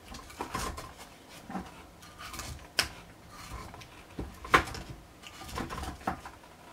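Metal spoon clinking and scraping against a stainless steel plate of fried rice, a handful of separate short clinks with the sharpest around the middle.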